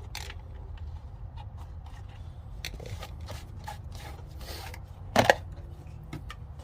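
Tools and plastic packaging being handled: scattered small clicks, taps and rustles, with a louder knock about five seconds in, over a steady low hum.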